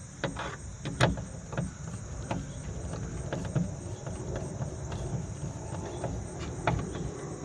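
Scattered light clicks and knocks of metal parts and tools being handled as a car door's inner bracket is refitted, over a steady high chirring of crickets.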